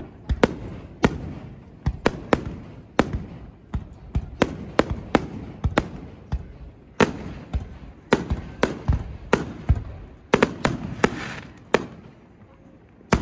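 Aerial fireworks shells bursting overhead: a run of sharp bangs at irregular spacing, about one or two a second.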